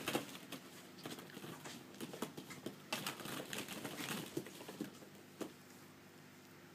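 Hollow plastic ball-pit balls clacking and rustling against each other as animals roll and play in them. The irregular light taps thin out and stop about five and a half seconds in.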